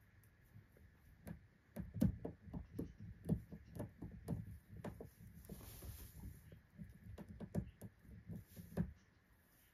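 Guinea pigs moving about in loose hay on fleece: soft, irregular thumps, about three a second, with a short rustle of hay midway.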